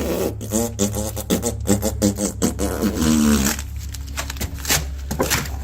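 A person's voice sounding a choppy, rhythmic wordless tune for about three and a half seconds, then a few short sounds, over a steady low hum.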